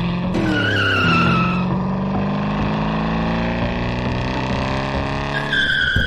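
Dubbed-in race car sound effect: an engine running hard that drops in pitch just after the start, with a tire squeal about half a second in and another near the end.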